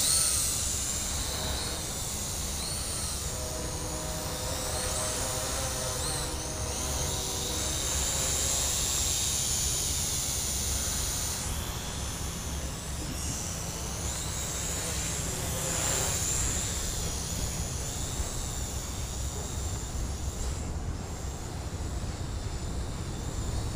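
Toy quadcopter's small motors and propellers whining in flight, the high pitch wavering up and down as the throttle changes, over a low rumble of wind on the microphone.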